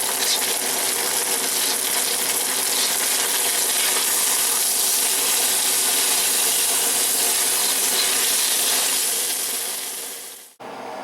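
Fried rice with seasoning and honey sauce sizzling in a pan over raised heat, a steady sizzle that cuts off abruptly near the end.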